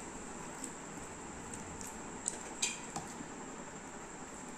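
Faint eating sounds: fingers working curry and rice on a plastic compartment plate, and chewing. A few soft clicks come over low room noise, the clearest about two and a half seconds in.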